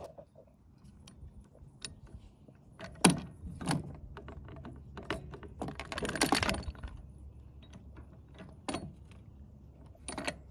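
Scattered small clicks and rattles of a roof crossbar's mounting clip being handled against the roof rail. The loudest click comes about three seconds in, with a short scraping rustle about six seconds in.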